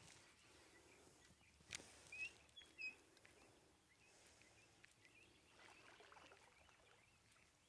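Near silence: faint outdoor ambience, with a single sharp click about two seconds in and a few faint high chirps just after it.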